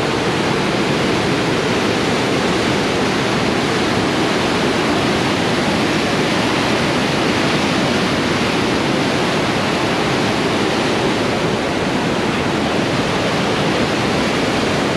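Loud, steady rushing of the Yellowstone River's whitewater rapids pouring over the brink of a waterfall.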